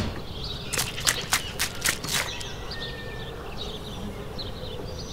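About six sharp clicks and taps within the first two seconds or so, from a small cup being knocked against a plastic miniature-column mould while wet cement mortar is poured into it, over a faint steady buzz.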